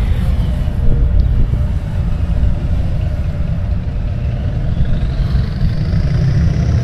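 Motorcycle engine running with a low, pulsing rumble while the bike rolls slowly. A thin whine rises in pitch over the last couple of seconds.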